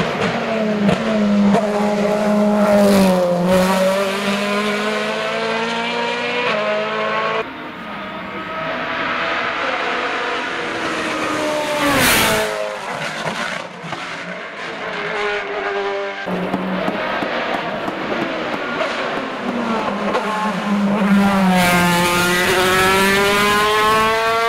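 Hill-climb racing cars' engines at high revs: each car's pitch drops as it brakes and downshifts into the bend, then climbs again in steps through the gears as it accelerates away. It happens three times, one pass after another, with a sharp crack about halfway through.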